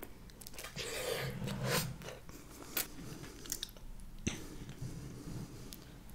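Close-miked chewing and wet mouth sounds of someone eating a soft, sauce-coated boiled potato, with a few sharp clicks, the sharpest about four seconds in.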